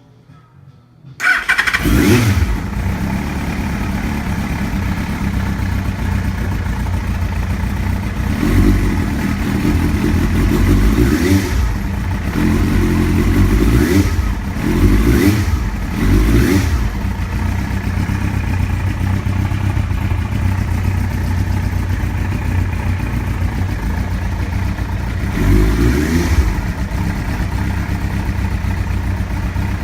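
2001 Yamaha FZ1's inline-four engine firing up about a second in and running steadily, with about half a dozen short throttle blips. This is its first start on a replacement wiring harness.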